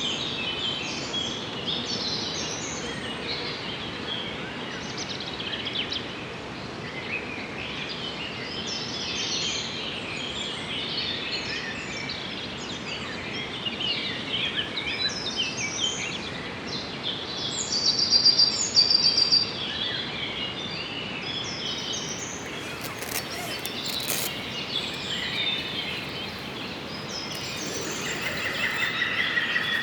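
Many small songbirds chirping and singing over a steady outdoor hiss, with a loud rapid trill about eighteen seconds in and another repeated call near the end.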